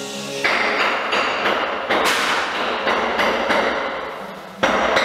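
Loud, rapid banging and knocking. It cuts in sharply about half a second in, fades gradually, then bursts in again just before the end.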